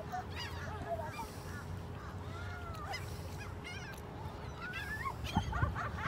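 A flock of gulls calling over and over, short arched cries overlapping one another as the birds circle overhead, waiting to be fed.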